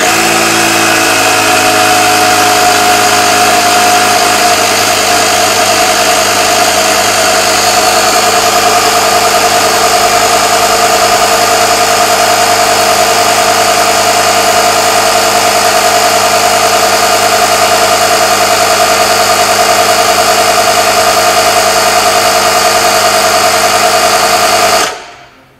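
Audew portable electric tyre inflator running steadily as it pumps a car tyre up to a preset 2.1 bar, then shutting off by itself near the end once that pressure is reached.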